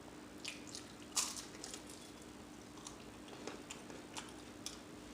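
Close-miked chewing and mouth smacking while eating beef and cheese taquitos: scattered short wet clicks and crunches, the loudest about a second in, over a faint steady hum.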